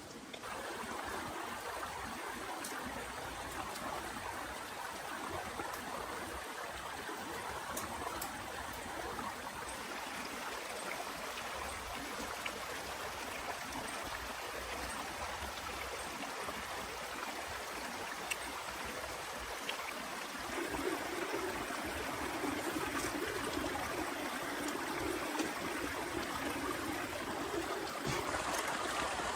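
Steady rush of running water with faint scattered ticks of drops; about two-thirds of the way through a deeper rushing layer comes in and it grows a little louder.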